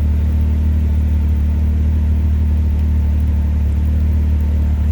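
Off-road vehicle engine running at a steady pace, a constant low drone with no change in pitch or loudness.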